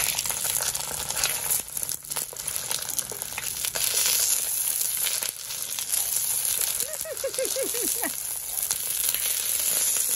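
Bánh xèo sizzling in hot oil in a nonstick pan, a steady crackling hiss. Short clicks and scrapes of silicone and wooden spatulas come as the folded pancake is turned over.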